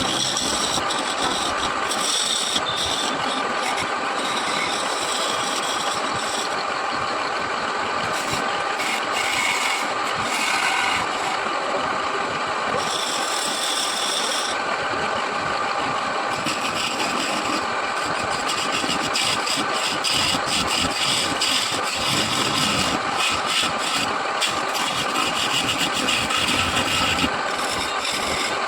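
Wood lathe running steadily, with a turning tool cutting the spinning wood in scraping passes that come and go every second or two.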